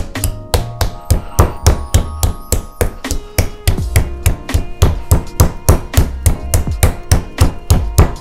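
Spiky side of a meat tenderizer mallet pounding raw chicken breasts on a plastic cutting board to tenderize them, a steady run of strikes about four a second, with background music under it.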